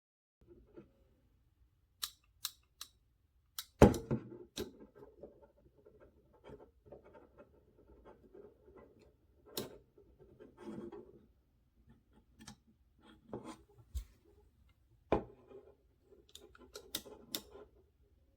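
Metal multitool and its case being handled: a string of sharp clicks and snaps, the loudest a knock about four seconds in, over soft rubbing and fumbling.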